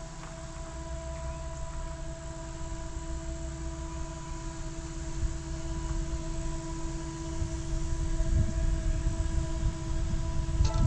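Distant approaching freight train led by a Norfolk Southern SD70ACC diesel-electric locomotive: a steady hum with several pitches, which the railfanner takes as a possible bad traction motor, over a low rumble that grows louder from about halfway. A short click near the end.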